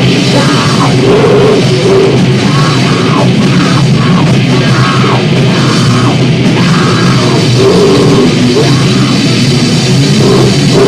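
Loud, distorted noise-rock band music played live, a dense wall of guitar noise and drums with no break.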